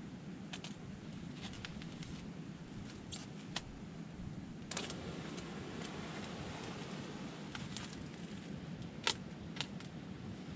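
Clear plastic stretch wrap crackling and snapping as it is handled and pulled around the poles, in scattered sharp clicks, the loudest about nine seconds in, over a steady low rush.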